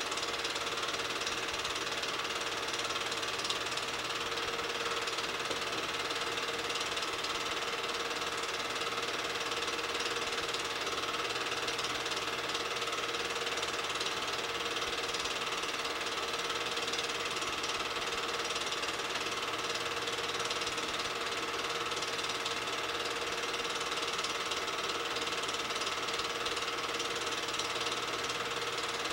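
8mm film projector running: a steady, rapid mechanical clatter from the film-advance mechanism over a steady motor hum.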